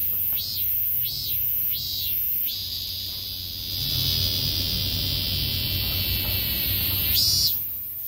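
A cicada singing: three short notes, each swelling and falling, about two-thirds of a second apart, then about two and a half seconds in a long steady buzz that lasts about five seconds and breaks off near the end.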